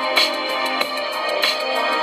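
Electronic music with a steady beat played through a pair of small Boombotix speaker drivers in miniature homemade bass reflex cabinets, powered by a Boom Bonnet amplifier board. It has very little deep bass.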